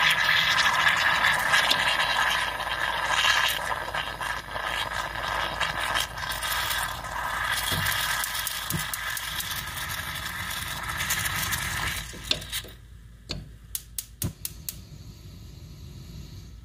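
Bialetti Brikka moka pot hissing and sputtering as coffee is forced up past its weighted pressure valve, the sound of the end of a brew. It weakens slowly, then drops away sharply about twelve seconds in, leaving a few scattered pops.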